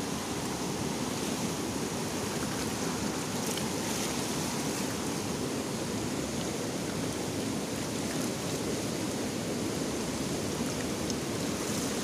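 Steady rush of a fast-flowing river running through rapids and over rocks, an even wash of water noise.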